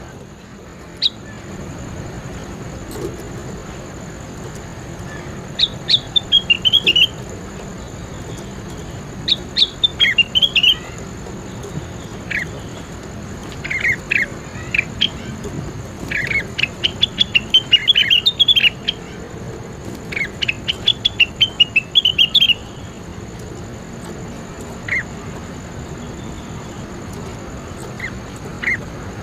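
Cucak wilis (leafbird) singing in repeated bursts of rapid, high chirping and twittering phrases, each lasting a second or two, with short pauses between them.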